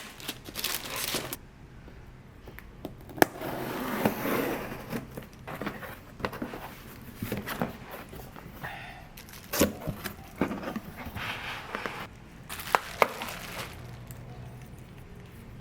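A vinyl LP's packaging being unwrapped and handled: crinkling and rustling plastic and paper, with sharp taps and clicks scattered through, quieter near the end.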